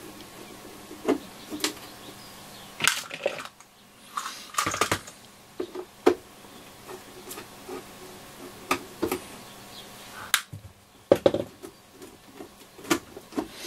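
Screwdriver taking screws out of the metal bottom cover of a Yaesu FRG-7700 receiver: scattered light clicks and knocks of metal on metal, one every second or two, as the screws are turned out and handled.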